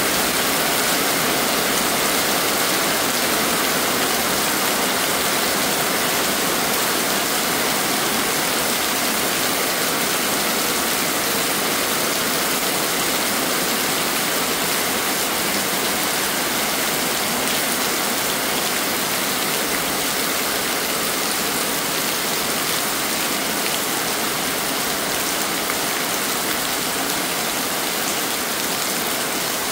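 Heavy rain pouring down steadily in an even hiss.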